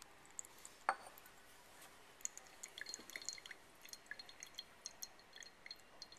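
Filtrate dripping from a filter funnel's stem into a glass conical flask as the cobalt yellow mixture is filtered: a scatter of faint, irregular plinks, with one louder tap about a second in.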